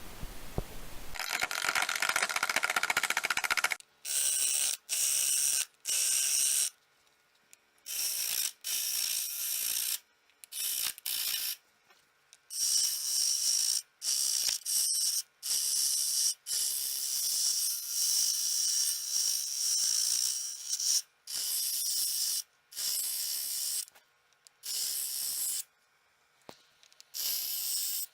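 Turning tool cutting a cedar blank spinning on a wood lathe, roughing it to round: a steady hiss of shavings coming off in stretches of a second to several seconds, broken by short silent gaps.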